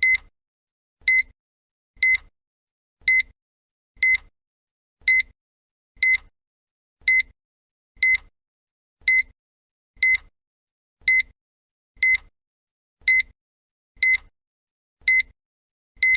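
Countdown timer beeping once a second: a short, high electronic beep repeated evenly, each second of the count marked by one beep.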